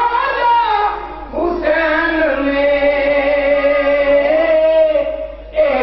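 Solo male voice reciting a naat, a devotional song in praise of the Prophet, sung in a melismatic chanting style with one long held note through the middle.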